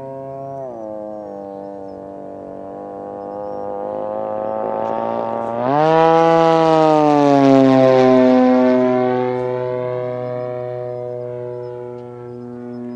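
RC T-6 scale model plane's G80 twin-cylinder gas engine droning in flight. Its pitch drops slightly about half a second in, then about six seconds in it jumps up sharply and gets louder, sliding slowly back down over the next few seconds.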